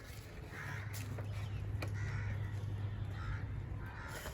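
Faint bird calls repeated several times over a low steady hum.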